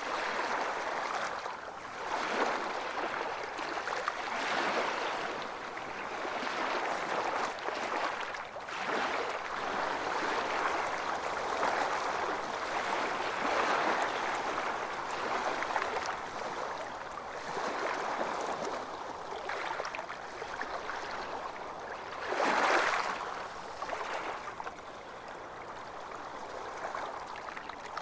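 Ocean waves washing onto a beach, swelling and ebbing every couple of seconds, with one louder wave breaking about three-quarters of the way through.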